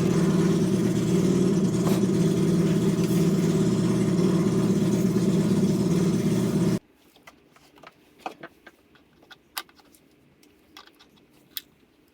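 Portable generator's small engine running steadily, cutting off suddenly about seven seconds in. Then faint clicks and handling noises.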